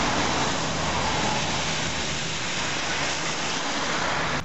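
Steady hiss of water on a rain-soaked, flooded street, even in level throughout.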